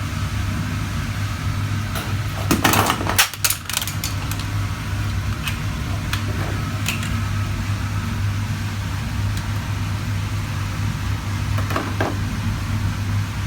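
Refrigerator compressor running with a steady low hum. Handling knocks and rattles cluster about two to four seconds in, with a few single clicks later.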